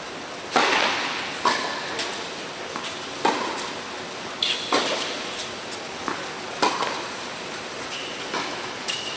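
Tennis ball being struck back and forth in a rally on an indoor court. Sharp pops of racket hits and ball bounces come every one to two seconds, each echoing through the hall, and the loudest is the serve about half a second in.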